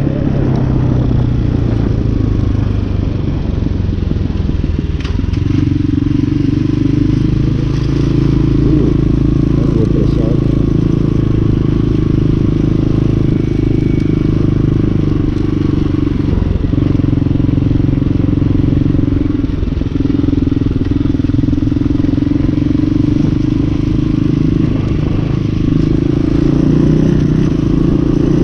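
Hawk 250 dirt bike's single-cylinder four-stroke engine running while the bike is ridden, its engine speed stepping up and down a few times.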